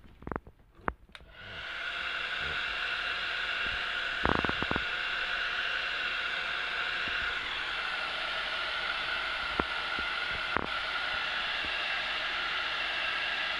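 Hand-held hot-air blower switched on about a second in and then running steadily with a whining hiss, as used to dry the screen-printing ink on the mask fabric; a few brief clicks sound near the start and again a few seconds in.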